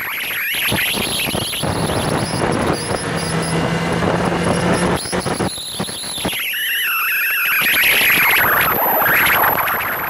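Motorcycle engine running at track speed under heavy wind noise, its whine falling in pitch about six seconds in and climbing again near the end.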